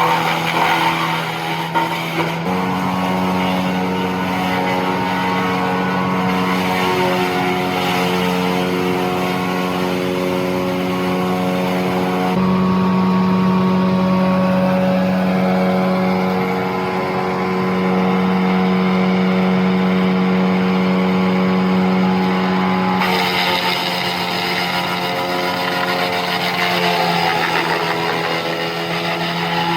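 A 10-inch wood chipper running steadily with a constant engine drone. Its pitch shifts slightly three times, about two, twelve and twenty-three seconds in.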